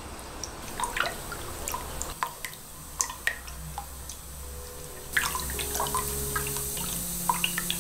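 Sugar and water being stirred with a silicone spatula in a stainless-steel saucepan: soft liquid swishing with scattered small clicks and scrapes of the spatula against the pan. Steady tones of background music come in about halfway through.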